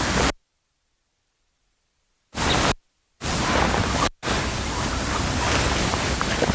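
Loud, even rushing noise of the open air over the microphone, cut in and out abruptly: dead silence for about two seconds after the start, a short burst at about two and a half seconds, then steady noise from about three seconds on.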